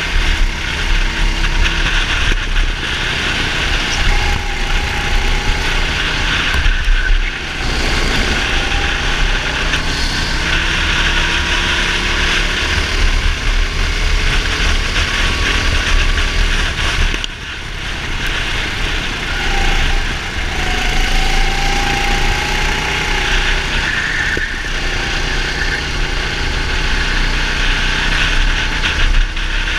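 Go-kart engine running hard on track, its pitch rising and falling with speed, with a heavy low rumble of wind on the helmet-mounted camera. The engine note drops away briefly twice, about a third and about halfway through.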